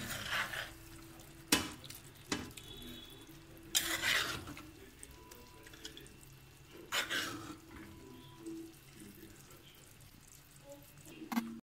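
A spoon scraping cooked curry out of a clay pot and tipping it into a glass dish: several wet scrapes and slops a second or more apart.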